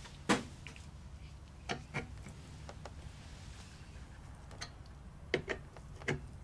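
Small irregular clicks and ticks, about seven, from a screwdriver turning the mounting screws of a Thermalright Peerless Assassin 120 CPU cooler down onto its motherboard bracket.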